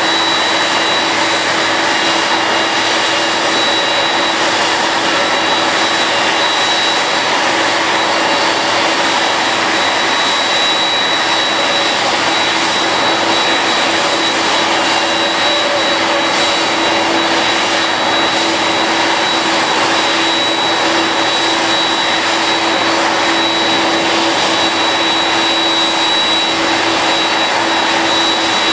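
Jet airliner's turbine running steadily while parked: a constant rushing noise with a high whine and a lower hum, each held on one pitch.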